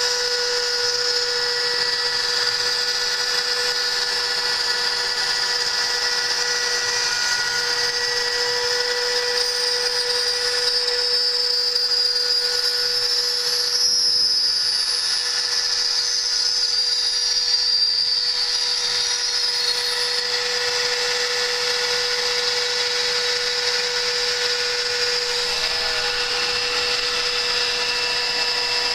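CNC router spindle running steadily while its end mill cuts 5 mm aluminium sheet, giving a steady high whine with a hiss of cutting. The cutting noise grows a little louder around the middle.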